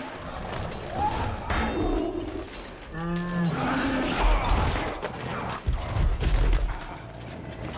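Film battle sound: crashing and clanging blows with heavy low thuds, and a short cry about three seconds in.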